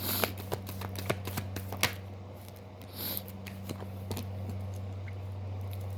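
Tarot cards being shuffled by hand: a quick run of card flicks and clicks in the first two seconds, then a short riffle about three seconds in, over a steady low hum.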